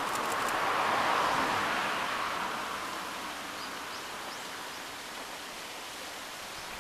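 Diesel railcar train running away along the line, its running noise loudest about a second in and fading over the next couple of seconds into a steady outdoor hiss, with a few sharp wheel clicks at the very start.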